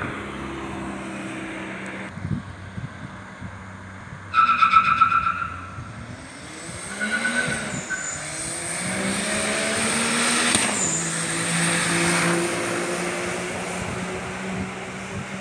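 Car engine running steadily, then a short, loud high squeal about four seconds in, followed by an engine revving up with rising pitch as a car accelerates away.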